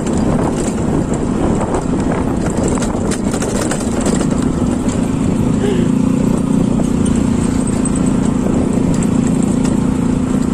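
Honda Click scooter's engine running while being ridden over a rough dirt trail, with scattered knocks and rattles from the bumps during the first few seconds. About four seconds in, the engine note steadies and gets a little louder.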